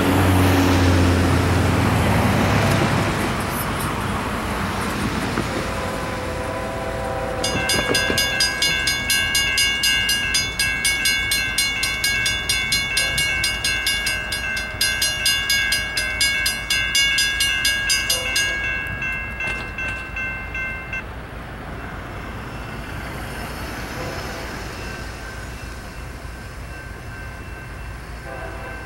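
A car drives over the crossing, then the railroad crossing signals activate: a WCH mechanical bell and a Safetran Type-2 electronic bell ring together in quick, even strikes for about ten seconds while the Safetran gates lower, then fall silent, leaving faint traffic noise.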